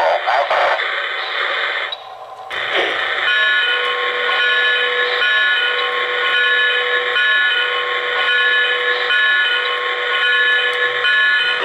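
O-gauge model train's digital sound system playing a steady ringing tone pattern that repeats with short breaks, after a brief drop in level about two seconds in.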